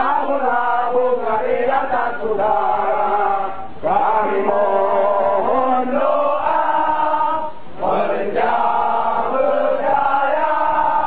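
A crowd of marching protesters chanting a slogan together, in repeated phrases of about four seconds with brief breaks between them.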